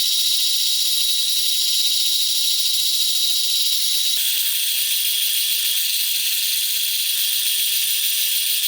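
Power tool cutting steel C-channel, most likely an angle grinder with a cut-off disc: a steady, high-pitched grinding noise that shifts abruptly about four seconds in.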